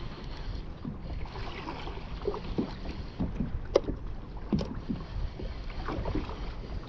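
Wind buffeting the microphone and choppy water washing against a kayak's hull, with two sharp clicks near the middle.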